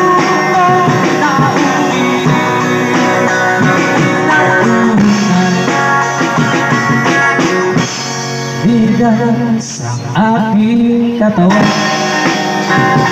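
Live band music: an electric guitar played through a portable amplifier, a man singing into a microphone, and a drum kit with cymbals keeping the beat.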